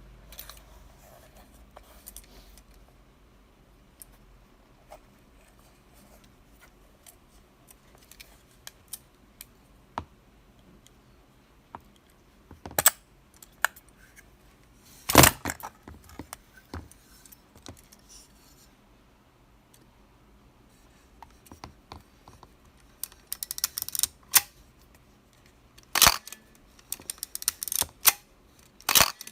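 Mechanism of a 1965 Topcon UNI film camera being handled and operated: scattered small clicks, a few sharp louder clicks, and near the end quick runs of small ratcheting clicks.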